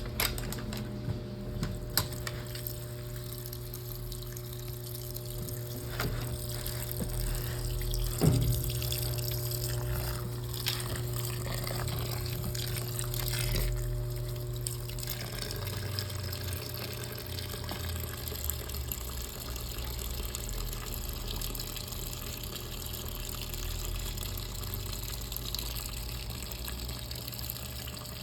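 Brastemp Clean washing machine running with water pouring and splashing in its tub over a steady motor hum, the hum changing about halfway through.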